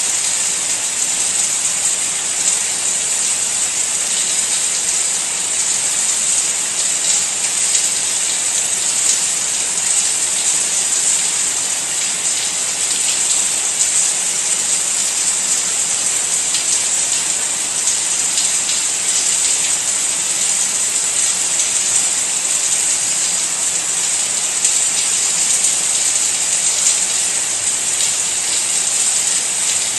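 Steady rain falling: a dense, even, high hiss of many drops, with faint ticks of single drops now and then.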